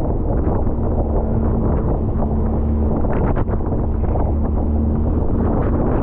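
Sea-Doo personal watercraft's engine running with a steady low drone, under heavy gusting wind buffeting the microphone.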